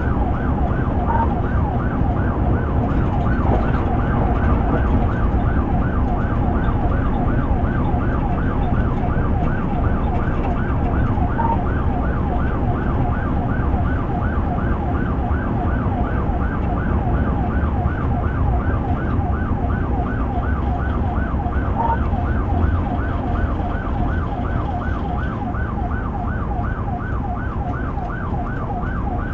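Police cruiser's electronic siren on a fast yelp: a pitch sweeping up and down several times a second without a break. Under it is the engine and road rumble of the cruiser at speed, heard from inside the cabin.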